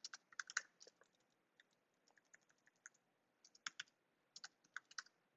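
Typing on a computer keyboard: a quick run of key clicks at the start, a few scattered keystrokes, then another quick run from about three and a half seconds in.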